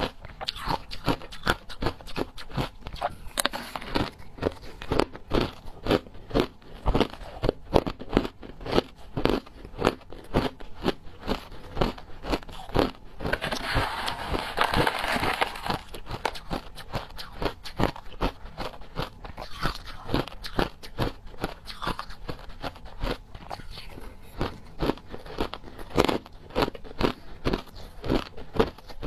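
Crushed ice being bitten and chewed: a run of hard, crackling crunches, several each second. About halfway, a metal spoon scrapes and scoops through the ice in the tub for a couple of seconds.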